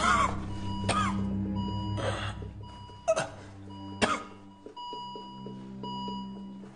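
Bedside heart monitor alarm beeping in short repeated tones, signalling a heart rate of 181 above its 120 limit: a tachycardia alarm. Loud gasping breaths come about once a second over it during the first four seconds.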